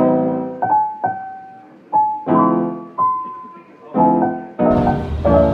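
Background music: piano notes and chords struck one at a time, each ringing and fading, with a fuller backing and bass coming in near the end.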